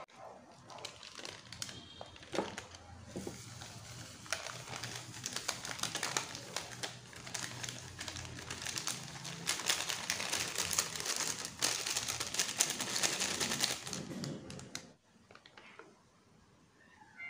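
Foil sachets of Chocolatos chocolate drink powder crinkling and rustling as they are torn open and emptied by hand into a steel pot: a dense run of small crackles that grows busier toward the end and stops a couple of seconds before the close.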